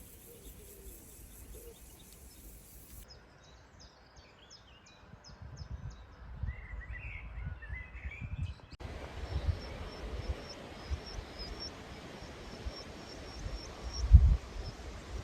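Outdoor ambience of small birds chirping and trilling, with irregular low rumbles and thuds. The background changes abruptly partway through, and the loudest thud comes about a second before the end.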